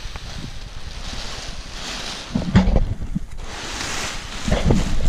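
Wind buffeting the microphone, with a strong gust about halfway through and another building near the end.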